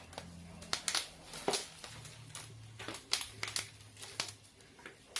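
Plastic packaging crinkling and rustling as it is handled, a string of irregular sharp crackles.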